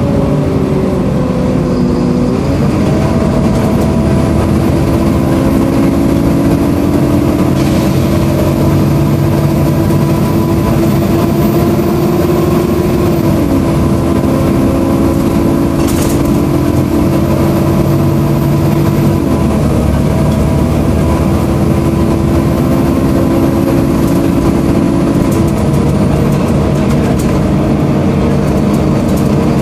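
Wright StreetCar bus's Volvo B7LA engine running with its loud cooling fan, a hoover-like whirr, heard from inside the passenger saloon. It is a steady drone with several held tones that drop in pitch about two seconds in, with one tone dropping again around halfway, and a single click just after.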